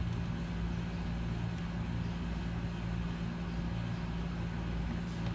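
Steady low mechanical hum with an even background noise, unchanging throughout.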